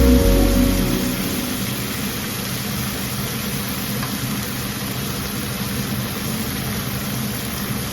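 Background music fades out within the first second, leaving a steady, even hiss with a low rumble underneath.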